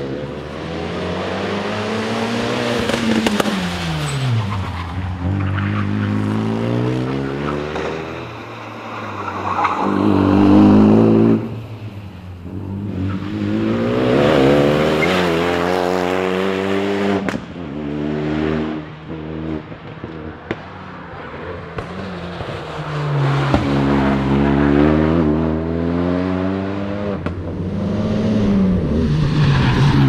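Renault Mégane RS250 rally car's turbocharged 2.0-litre four-cylinder engine accelerating hard through the gears and passing by several times. Its note climbs with each gear and drops away as it goes past.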